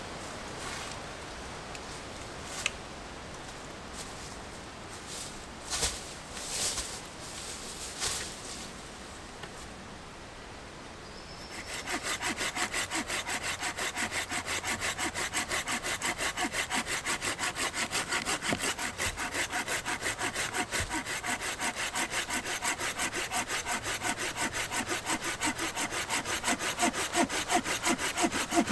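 A hand saw cutting through a small log with fast, even push-and-pull strokes, about four a second, starting about a third of the way in. Before that there are only a few light knocks.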